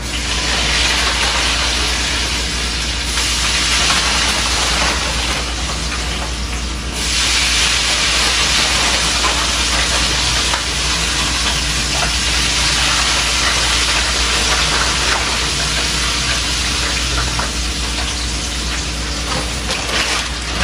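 Hot cooking oil sizzling steadily as food deep-fries in a pan on the stove, getting louder about seven seconds in.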